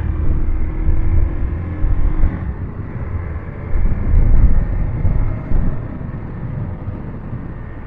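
Riding on a motorcycle: wind rushing over the microphone in uneven gusts over the low running of the engine, loudest about halfway through.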